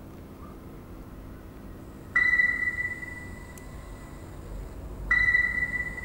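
Electronic tone from switch-scanning software, marking the mouse scan sweeping the screen. A single high beep comes on sharply about two seconds in, drops to a quieter hold and fades, then starts again the same way about five seconds in.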